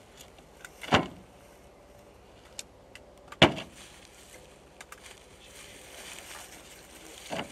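Pickup truck bodywork knocked at the bed and tailgate: two loud thumps about two and a half seconds apart, and a softer one near the end.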